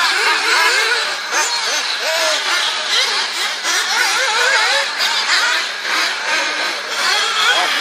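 Several radio-controlled off-road buggies running on a dirt track, their small engines overlapping and revving up and down continually as they accelerate and brake around the circuit.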